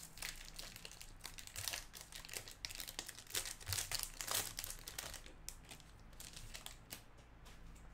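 Foil wrapper of a Topps Series Two jumbo pack of baseball cards being torn open and crinkled: dense crackling for about five seconds, thinning to scattered small clicks near the end.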